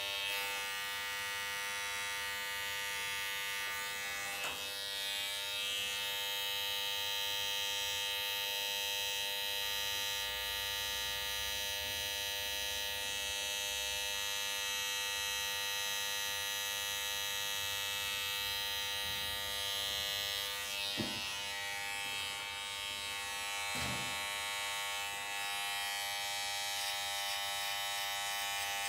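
Corded electric hair trimmer buzzing steadily while cutting a child's short hair. Two brief knocks come in the last third.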